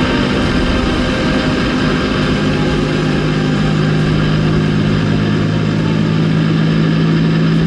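Diesel semi truck pulling hard at highway speed, its engine's steady drone over heavy wind and road noise; a low hum firms up about two seconds in. Black smoke from the stacks shows the engine under heavy load.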